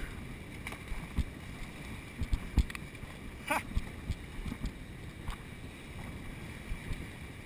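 Shallow surf washing and foaming over a rocky reef flat in a steady hiss, with a few short low knocks and one brief sharper burst about halfway through.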